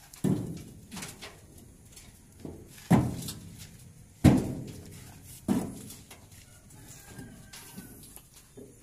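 Hydraulically pressed stone building blocks being handled and set down one after another: a series of hard knocks at irregular intervals as block strikes block, four loud ones with softer knocks between.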